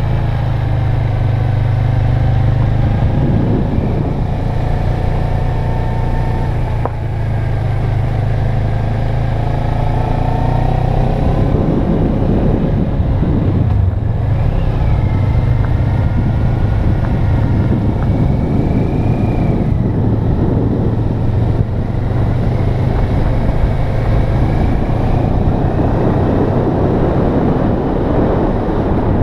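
Motorcycle engine running under way, its note rising and falling with the throttle through the bends, over a steady low rumble of wind and road noise on the microphone.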